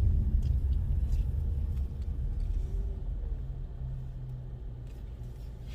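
Low rumble of a car heard from inside the cabin, engine and road noise growing steadily quieter.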